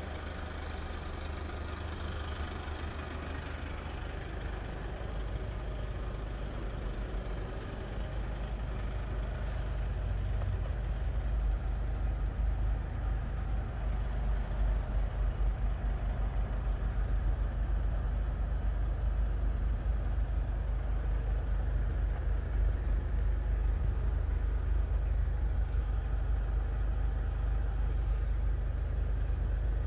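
Mercedes-Benz Vito Tourer 114 CDI diesel engine idling, heard from inside the cab as a steady low rumble that grows louder over the first dozen seconds.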